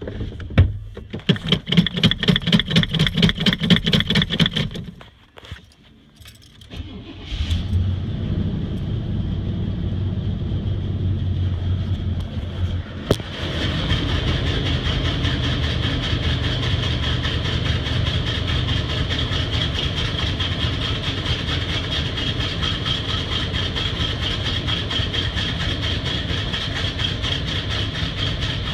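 Pickup truck engine cold-started: the starter cranks it over rhythmically for about five seconds without catching, then after a short pause it fires about seven seconds in and settles into a steady run. It gets louder again about thirteen seconds in. This is a hard cold start of a truck that has sat unused for a while in freezing weather.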